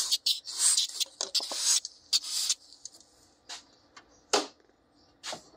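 Brittle, aged plastic fuel injector connector being worked and pried at by hand: scratchy rasping and scraping for the first couple of seconds, then a few sharp plastic clicks and cracks, the loudest about four seconds in. The old plastic is cracking as it is forced.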